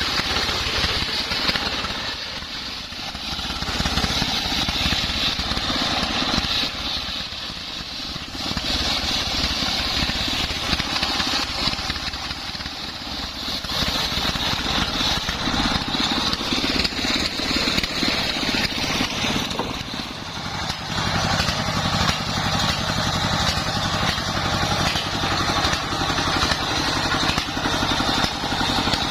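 Homemade circular sawmill rig running and sawing sengon wood into beams: a steady engine drone with the saw's noise on top, growing quieter and louder by turns every few seconds.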